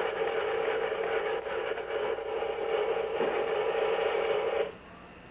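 A battery-powered toy buzzing steadily with a mechanical whir, which cuts off suddenly near the end.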